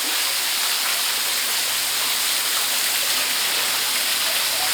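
Water pouring down a waterfall: a steady rushing splash that does not change.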